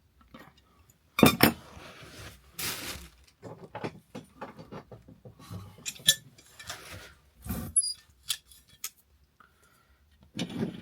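Adjustable spanner and screwdriver clinking against the metal cistern bolts and the ceramic cistern while the bolt nuts are tightened: irregular clicks and clinks with a few louder knocks.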